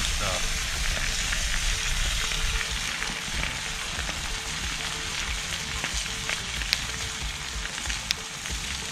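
Fresh lake trout fillet frying in butter in a cast iron pan over a campfire: a steady sizzle, with a couple of sharp pops near the end.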